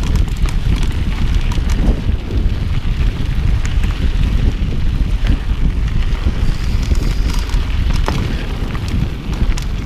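Wind buffeting the microphone of a handlebar-mounted camera on a mountain bike riding fast down dirt singletrack. Under it are a constant rumble of tyres on the dirt and scattered clicks and rattles from the bike.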